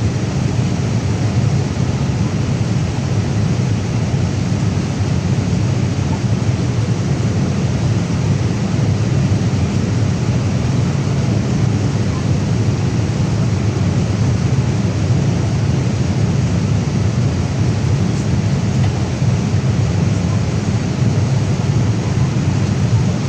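Steady cabin noise inside a Boeing 787 Dreamliner on final approach: engine and airflow noise as an even, deep rushing sound with no distinct events.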